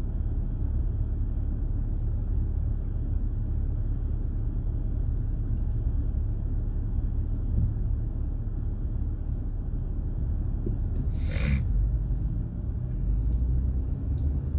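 Steady low rumble of a car driving on the road, heard from inside the cabin. A brief, sharper noise comes about eleven seconds in.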